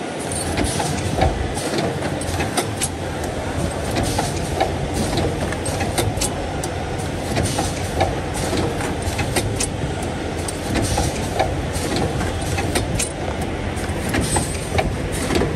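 CNC wire loop bending and butt-welding machine running as it feeds and forms 1.2 mm steel wire into a ring. A steady mechanical rumble is broken by frequent, irregular sharp clicks and clacks from its moving tooling.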